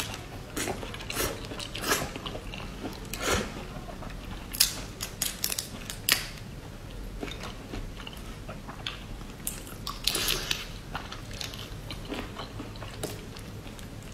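Chewing and biting of marinated prawns, with sharp, irregular cracks and crackles as the prawn shells are pulled apart by hand.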